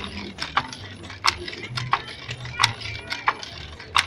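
Wooden fly-shuttle handloom working: a steady run of sharp wooden clacks, about one and a half a second, as the shuttle is jerked across by its cord and the batten beats the weft.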